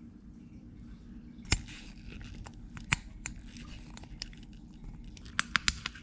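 Lug nut caps being clicked onto the wheel's lug nuts: scattered sharp clicks, with a quick run of several near the end.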